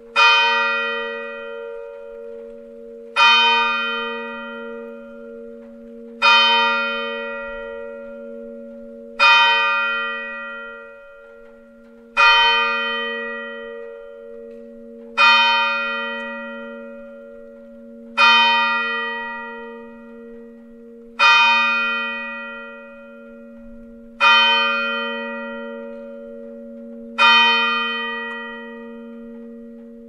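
Small church bell tolling slowly, ten strokes about three seconds apart. Each stroke rings out and fades over a low hum that carries on between strokes.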